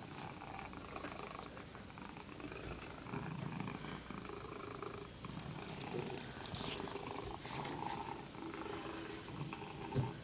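A tortoiseshell cat purring steadily, close to the microphone, while a thin stream of tap water trickles into the sink. A short bump sounds near the end.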